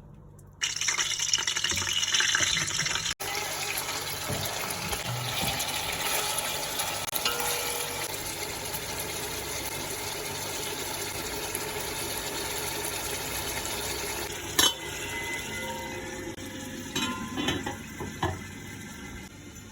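Steady hiss of cooking in a kitchen, with a sharp clink about fifteen seconds in and a few clatters of pots and utensils near the end.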